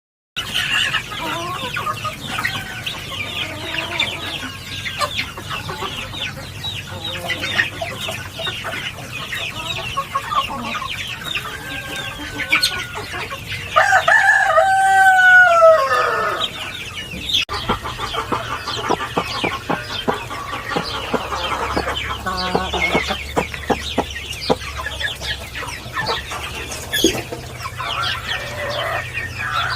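Chickens clucking with many short high calls. A rooster crows once about halfway through, the loudest sound, falling in pitch at its end.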